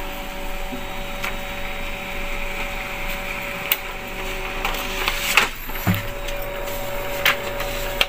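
Epson L3210 inkjet printer's mechanism running as it powers up for a test print, a steady motor whir with a few sharp clicks.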